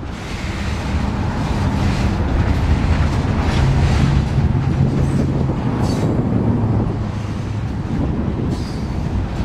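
CSX freight train rolling past, a steady rumble of wheels on rail.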